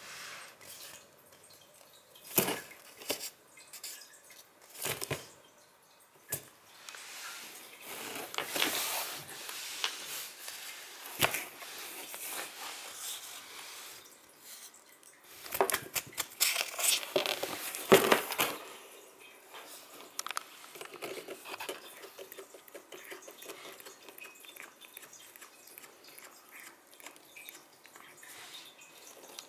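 Cat shifting about inside a cardboard box: irregular scrapes, rustles and taps against the cardboard and floor, with a louder cluster of scratchy scrapes a little past halfway.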